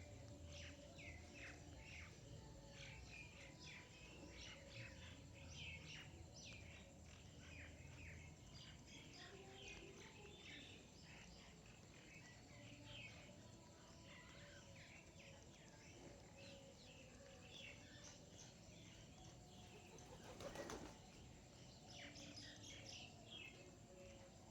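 Faint, busy chirping of a group of small birds feeding, with many short chirps throughout and a brief flurry of wing flaps about four fifths of the way in.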